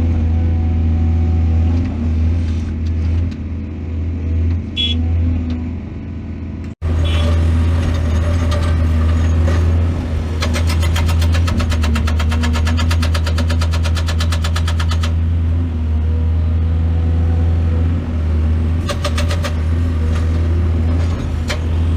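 Excavator's diesel engine running steadily with a deep hum, broken by a sudden cut about seven seconds in. Rapid, even clicking or rattling rides over the engine for about five seconds in the middle and again briefly near the end.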